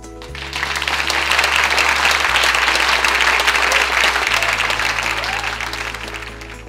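Audience applauding, swelling in within the first second, holding loud for several seconds, then fading away near the end, over background music.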